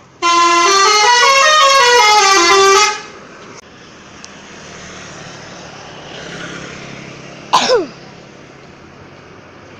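Indonesian bus 'telolet' musical air horn playing a stepping, rising-and-falling melody for about three seconds, then a steady low engine hum with street noise. A short falling squeal sounds twice about seven and a half seconds in.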